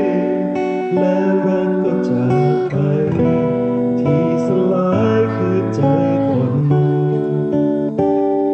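Background music: a song with acoustic guitar strumming and a singing voice.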